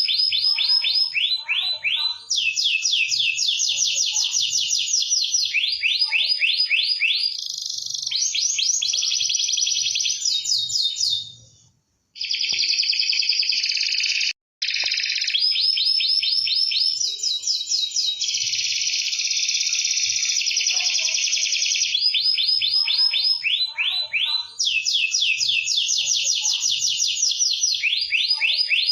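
Domestic canary singing almost without pause: fast trills of rapidly repeated high notes, the phrase changing every second or two, in the vigorous non-stop 'gacor' style used to tutor other birds. Two brief sudden breaks come near the middle.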